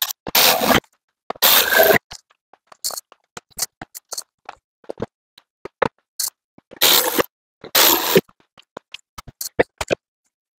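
Plastic interior trim and a grab handle being pressed back into a pickup cab's headliner and pillar: a scatter of sharp clicks and snaps with four short scraping rustles.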